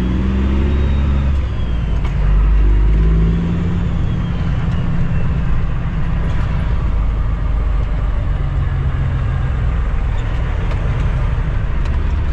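Cummins ISX diesel engine of a 2008 Kenworth W900L heard from inside the cab, pulling away at low speed. The engine note climbs twice in the first few seconds as the truck works through the gears, then settles into a steady low running sound with a faint high whine.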